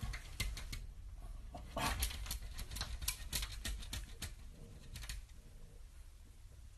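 French bulldog puppy's paws and claws tapping and scratching against a glass door pane in irregular clicks, bunched in the first few seconds and thinning out toward the end.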